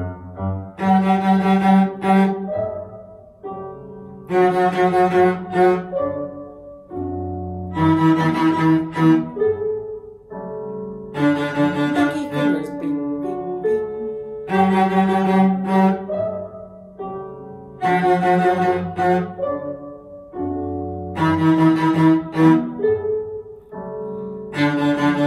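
Cello bowed on the D string, playing fingered notes (first, third and fourth fingers) in a repeated rhythm over a recorded piano accompaniment. Loud phrases return about every three and a half seconds.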